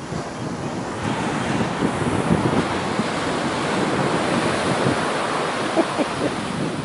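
Ocean surf: a large wave breaking on the beach and its foam rushing up the sand, swelling about a second in and holding as a steady rush.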